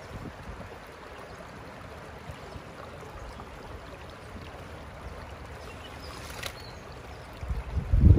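Shallow river water running steadily over rocks and a doormat gold sluice while a bucket of gravel and water is tipped out onto the mat. A low rumble of wind on the microphone builds near the end.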